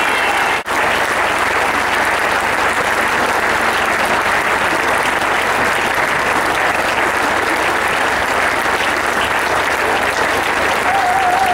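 Large crowd applauding steadily, with a brief dropout about half a second in.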